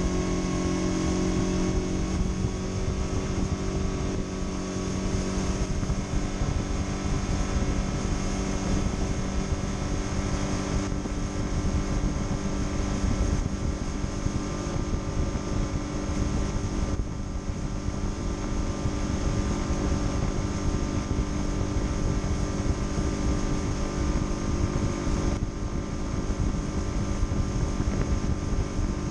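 Mercury 25 hp four-stroke outboard motor running steadily under way, driving an aluminum boat at speed, with wind rushing over the microphone.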